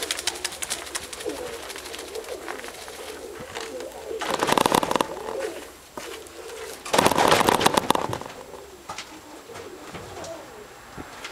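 Domestic Nikolaev pigeons cooing. Two loud noisy flurries break in about four and seven seconds in, each lasting about a second.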